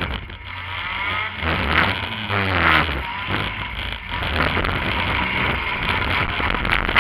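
Compact demolition derby car's engine running inside the cab, revving down and back up between about one and three seconds in, with a few knocks and rattles from the car.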